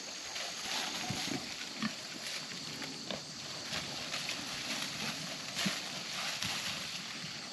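Pigs grunting now and then as they root through freshly turned soil, over a steady chirring of insects.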